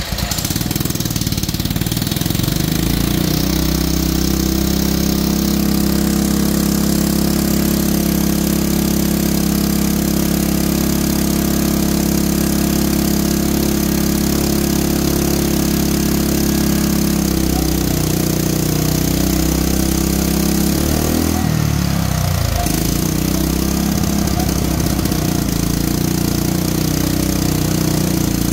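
Portable petrol generator engine with its intake drawn through a water bubbler, catching at the start and running steadily under electrical load. About 17 seconds in the running turns uneven, and a little after 21 seconds the speed drops sharply and then recovers, as the choke and petrol are balanced to pull vacuum through the bubbler.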